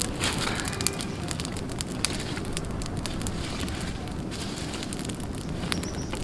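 Open fire of dry sticks and leaves burning, crackling steadily with many sharp pops, two of them louder in the first two seconds.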